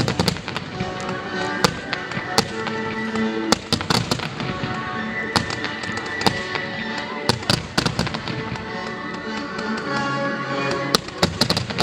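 Fireworks display firing volleys of shells and comets: sharp bangs and pops at irregular intervals, some in quick clusters, over loud music with sustained notes.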